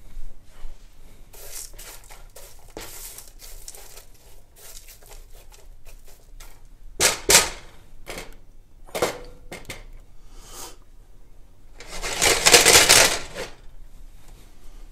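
Cooking noises at a frying pan: a plastic spatula stirring frozen leek slices into softening diced onions, with scattered knocks and clinks against the pan and a small metal bowl. A longer, louder scraping noise lasts about a second and a half near the end.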